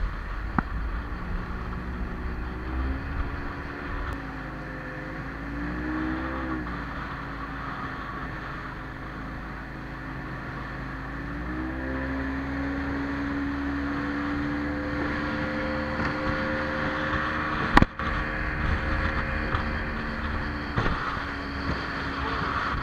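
Boat outboard motor running at speed, its pitch wavering about six seconds in and climbing about twelve seconds in before holding steady, over a steady rush of water and wind noise. A single sharp knock about eighteen seconds in.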